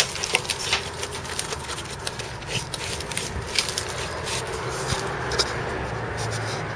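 A hand scraping loose mortar and brick rubble out of the hole left by a removed brick: irregular gritty clicks and scrapes, busiest in the first second, over a steady low rumble.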